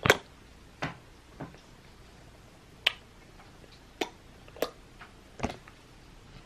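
A series of short, sharp kissing smacks of the lips, about seven, unevenly spaced, the first the loudest.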